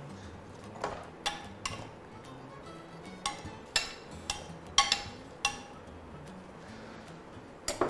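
A spoon or utensil clinking against a bowl, about nine sharp, separate clinks that ring briefly, as diced apple and other salad ingredients are put into it.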